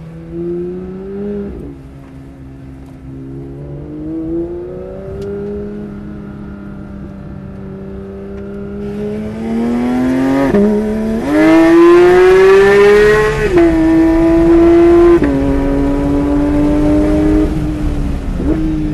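Porsche 992 GT3 RS's naturally aspirated 4.0-litre flat-six, heard from inside the cabin. It runs at modest revs at first, then about nine seconds in it accelerates hard and gets much louder. The pitch climbs and drops sharply at each quick dual-clutch gear change.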